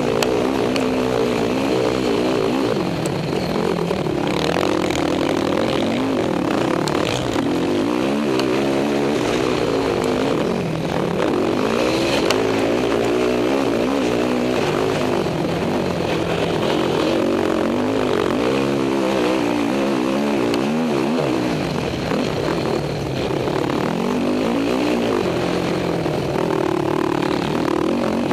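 Racing quad (ATV) engine heard from on board, running hard around a dirt motocross track. Its pitch climbs and falls again and again as the throttle is opened and shut through the corners and jumps.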